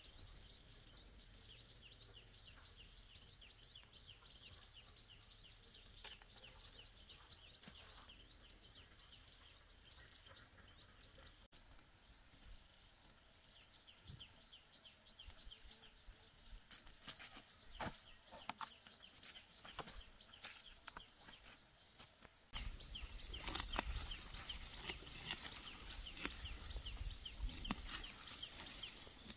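Faint rural outdoor ambience with quick high chirps repeating a few times a second. About three-quarters of the way through it jumps louder, with a low rumble and a string of sharp clicks and crackles.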